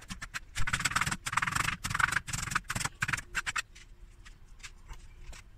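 Cleaver chopping spring onion on a cutting board: a quick run of chops that stops about three and a half seconds in, leaving a few faint taps.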